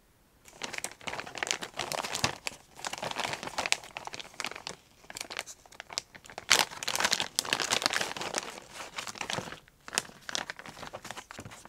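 Clear plastic packaging crinkling and rustling in the hands as a doll wig is unwrapped from its bag and round plastic case, in irregular bursts with a short lull about ten seconds in.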